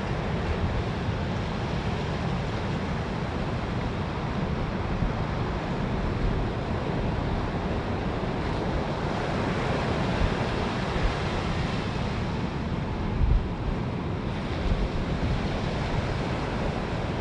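Ocean surf washing onto a beach in a steady roar of breaking waves, with wind buffeting the microphone in low rumbles.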